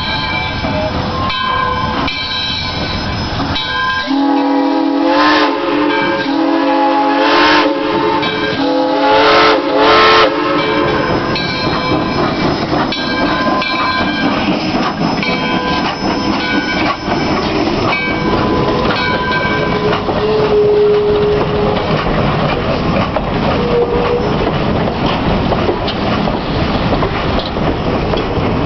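Arcade & Attica No. 18 steam locomotive blowing its whistle, a chord of several notes held on and off from about four to eleven seconds in. Afterwards the train runs on with a steady rumble and clatter of wheels and cars.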